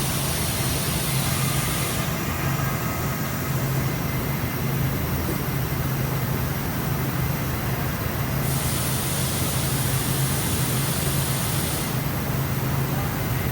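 5-axis gantry machining center running with a steady low hum, overlaid by a high hiss that cuts in and out in spells of a few seconds.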